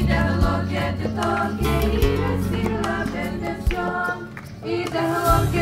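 A youth choir singing a song into microphones over a PA speaker, with a steady instrumental accompaniment underneath. There is a short break between phrases about four and a half seconds in.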